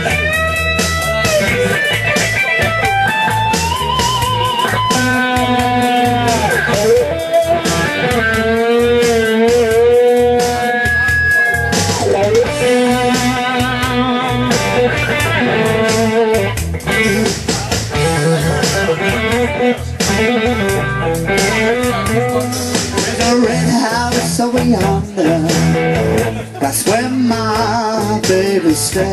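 Live blues played on electric guitar through a PA, a lead line of sustained notes with string bends and vibrato.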